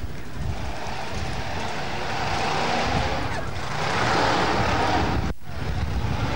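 Wind buffeting a camcorder microphone, a rushing noise that swells to its loudest about four seconds in and drops out for a moment about a second later.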